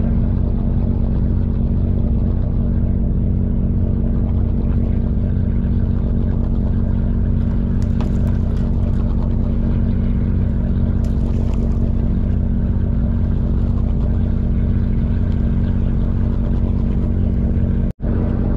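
Charter fishing boat's engine running steadily at an even pitch: a constant low drone.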